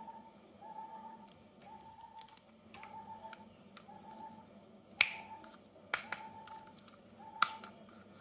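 Three sharp clicks, a second or so apart in the second half, over a faint short tone that repeats about once a second.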